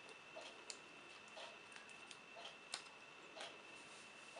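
Faint regular ticking, about one tick a second, with a few sharper clicks as an iPad 2 is turned over in the hands. A faint, steady high whine runs underneath.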